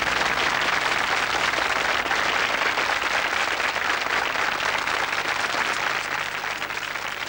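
Audience applauding, a dense, steady clapping that eases off a little near the end.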